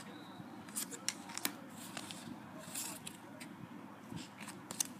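Trading cards and a foil booster-pack wrapper being handled: scattered light clicks, taps and rustles over a faint steady hiss.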